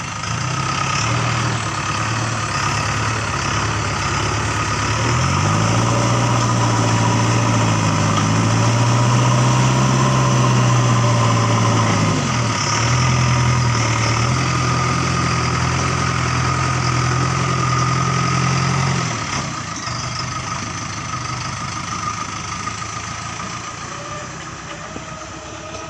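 Diesel engine of a JCB 3DX backhoe loader running. Its revs rise about five seconds in and stay up, dip briefly, rise again, then drop back to a lower speed a few seconds before the end.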